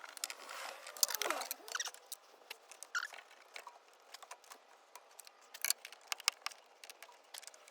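Irregular small clicks, scrapes and brief squeaks of hands and tools working loose the car's interior seat track and floor panel fittings.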